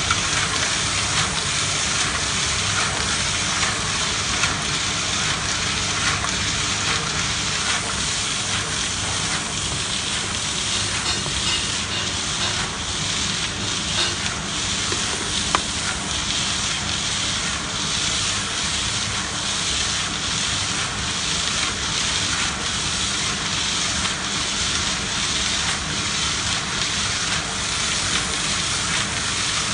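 70-litre tilting concrete mixer running, driven by its 1 hp Mitsubishi electric motor, the drum churning a load of sand mix: a steady hissing, gritty churn with a faint even pulse.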